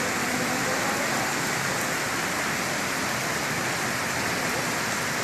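Steady hiss of heavy rain mixed with the rush of fast-flowing muddy runoff water in a street canal.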